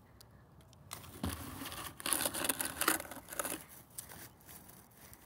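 Dry grass and dead leaves crackling and rustling in dense bursts, loudest from about one to four seconds in.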